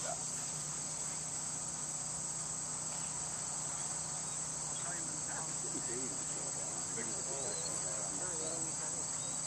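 Steady, high-pitched chorus of insects in the grass field, unbroken throughout. Faint distant voices come in during the second half.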